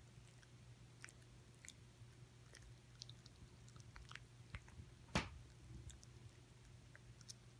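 A Chihuahua gnawing and licking a stick-shaped dog chew, making faint, scattered wet clicks and small crunches, with one sharper crack about five seconds in.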